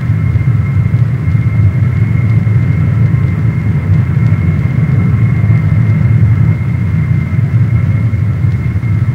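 Lockheed C-5 Galaxy's four turbofan jet engines running as the aircraft flies overhead: a loud, steady deep rumble with a thin steady whine above it.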